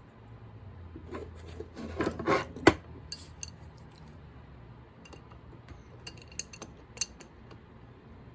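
Metal spray-gun parts and tools being handled while the gun is reassembled: a scraping, rattling stretch about two seconds in that ends in one sharp metallic clank, then a few light clinks.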